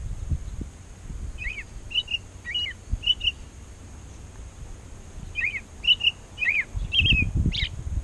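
American robin singing: two runs of short clear whistled notes, about four to five notes each, with a pause between the runs.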